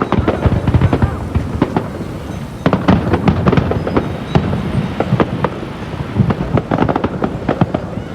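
Fireworks going off in rapid volleys of bangs and crackling, with a short lull about two seconds in before a denser burst.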